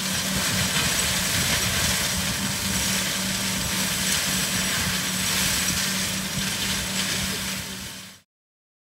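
Tractor-mounted Seppi WBS flail mulcher running steadily: an even machine roar with a steady hum, cutting off abruptly about eight seconds in.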